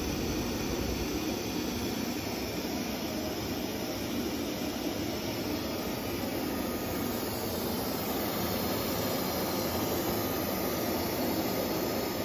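Becker VTLF 250 rotary-vane vacuum pump running steadily, a constant rushing noise that holds the workpiece down on the router's vacuum table.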